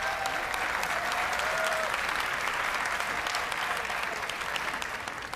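An arena audience applauding steadily.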